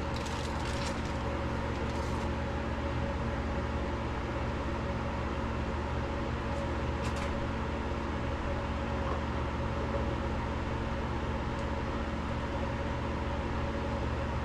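Steady low machinery hum made of several even tones, with a faint click about seven seconds in.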